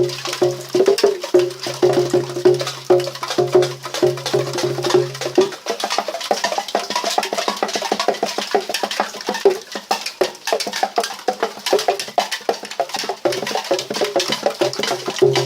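Raindrops dripping onto an aluminium beer can, a dense, irregular patter of tinny taps like a small percussion instrument. A low steady hum comes and goes under the tapping during the first third and again near the end.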